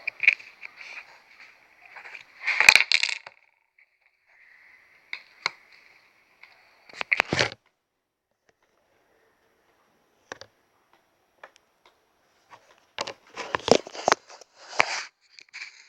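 Plastic packaging being handled during an unboxing: scattered crackles, clicks and scrapes, with a quiet stretch in the middle and a busier run of crackling near the end.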